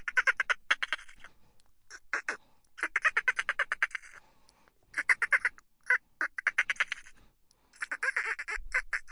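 Dolphin chattering: bursts of rapid clicking pulses, a little under a second each, coming again and again with short pauses between them.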